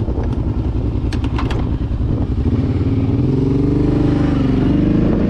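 Kawasaki Brute Force 750 ATV's V-twin engine running, with a few sharp clicks in the first two seconds. About two and a half seconds in the engine picks up revs and holds a higher pitch as the quad moves off.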